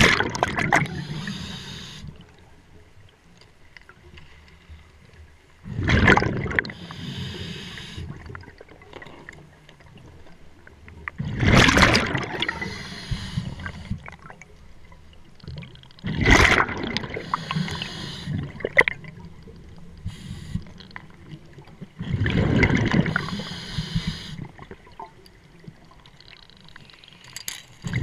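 Scuba diver breathing through a regulator underwater: a rush of exhaled bubbles about every five to six seconds, each fading over a second or two, with a low hiss between breaths.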